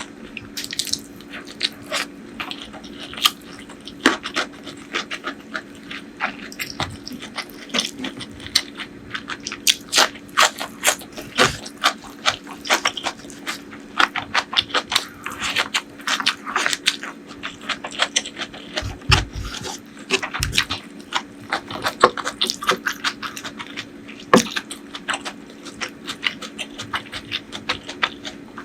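Close-miked eating sounds: a person chewing a meal of curry and rice, with frequent wet mouth smacks and clicks.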